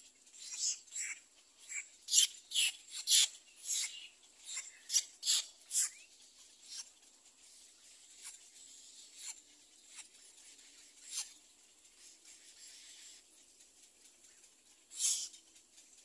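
Little egret chicks giving short raspy calls, about two a second over the first six seconds, then only now and then, with one louder call about fifteen seconds in.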